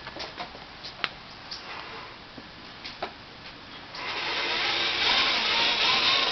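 Handling noise from a cardboard shoe box held against the camera: scattered light clicks and taps, then about four seconds in a loud, steady rubbing scrape that lasts a couple of seconds.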